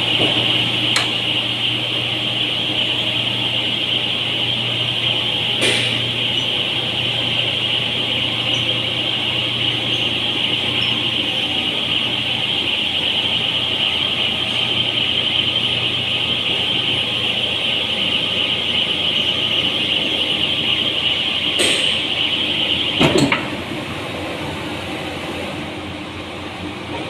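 A machine running steadily with a high, even whine over a low hum, and a few sharp clicks. Near the end there is a louder clunk, after which the whine fades and the running gets quieter.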